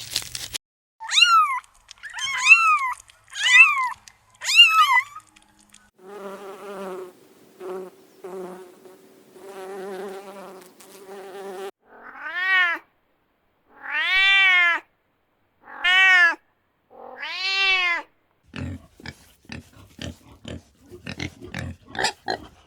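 A run of wild animal calls: four short, high, arched chirps, then lower wavering, trilling calls, then four longer arched squeals, with a patter of rapid clicks and grunts near the end.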